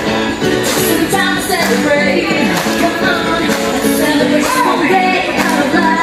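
Upbeat pop dance music with singing over a steady beat.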